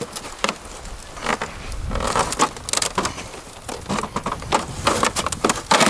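Plastic housings of flat-screen TVs knocking and clacking as the stacked sets are handled and pulled against a crossbow bolt stuck through them: a string of irregular knocks, with the loudest cluster near the end.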